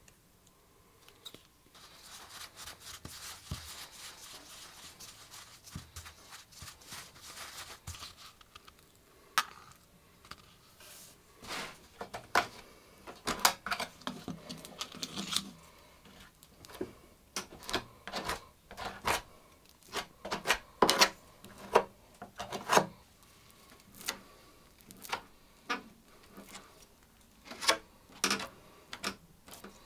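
A sawdust-and-glue paste being mixed in a cup with a quick scratchy rubbing, then pressed and scraped onto a damaged wooden corner with a tool in many short, sharp scraping strokes.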